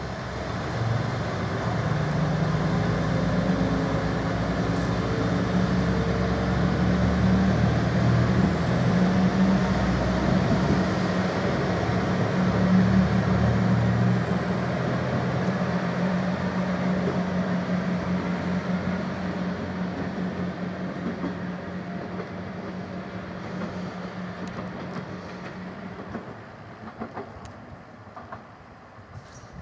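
KiHa 120 diesel railcar pulling away from a station stop: its diesel engine runs up under load, a thin high whine rising in pitch joins after about eight seconds, and the engine sound fades as the railcar draws off.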